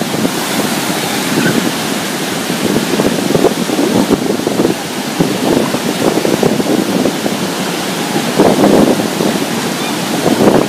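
Ocean surf breaking and washing up a sandy beach, with wind buffeting the microphone in uneven gusts.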